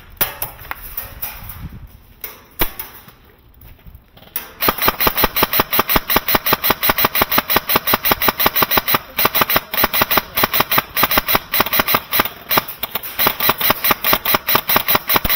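Airsoft guns firing: a few scattered shots and clicks, then from about four and a half seconds in a long unbroken full-auto burst of rapid, evenly spaced shots.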